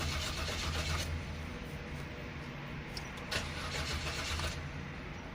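Citroen C5 3.0 V6 engine being turned over by the starter motor and not catching. This is the no-start that a failed crankshaft position sensor (fault P0335) causes.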